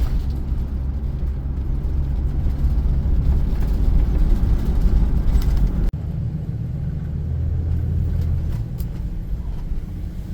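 Car driving on a road, heard from inside the cabin: a steady low rumble of engine and tyres, with a sudden brief drop in level about six seconds in.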